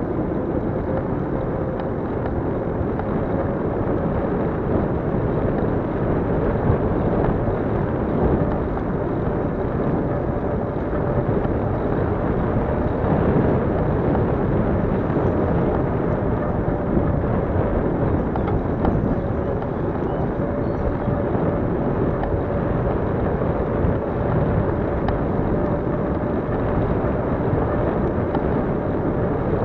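Steady rushing wind noise on a handlebar-mounted action camera's microphone as a bicycle rolls along an asphalt path, with a faint steady hum underneath.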